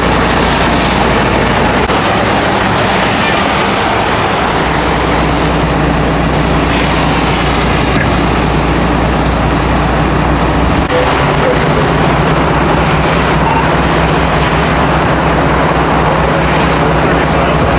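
A vehicle engine idling steadily under a constant rushing noise; the engine's low hum changes about eleven seconds in.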